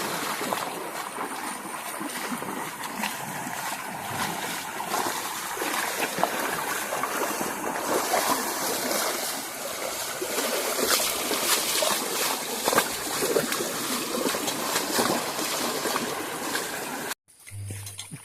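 Flowing stream water with frequent sharp splashes; the sound cuts off abruptly near the end.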